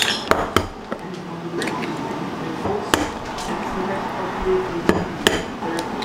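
Eggs knocked against the rim of a ceramic bowl and cracked open: several sharp knocks spread through a few seconds.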